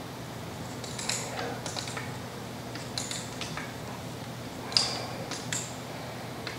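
Scattered small metallic clicks and clinks of wrenches on a Ford Model T engine's adjustable valve lifters as the lifter adjusting screws are turned to set valve clearance, with one sharper clink a little before five seconds in.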